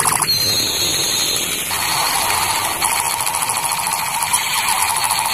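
Battery-powered toy AK-47 firing its electronic machine-gun sound effect through its small speaker: a fast, continuous rattle of shots.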